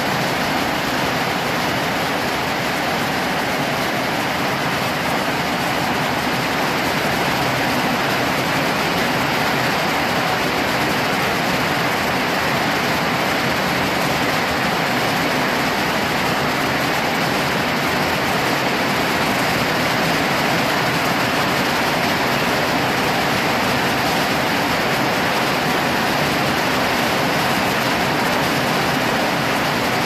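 Heavy rain pouring steadily onto a corrugated metal roof, a dense, even hiss with no let-up.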